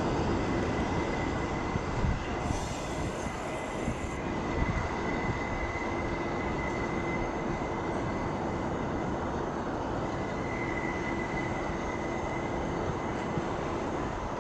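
Departing R188 subway train on an elevated steel structure: steady running rumble as it pulls away, with a thin, steady high-pitched squeal over it.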